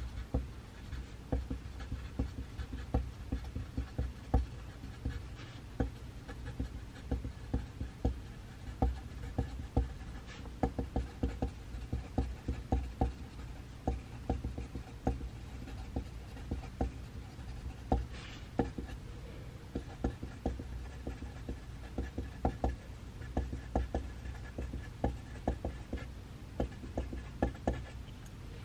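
Pencil writing on paper: an irregular run of short scratches and taps, several a second, over a steady low hum of room noise.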